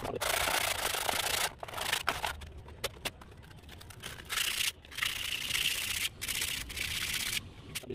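Coarse sandpaper rubbed by hand over a brake drum, a dry scraping sound. It runs unbroken for about the first second and a half, then goes on as shorter, fainter strokes with pauses between them.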